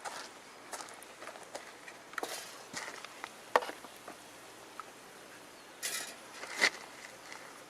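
Close-up handling sounds of a wrap being made with a spoon and lavash flatbread: scattered light clicks and taps, the sharpest about three and a half seconds in, and two short rustles near the end.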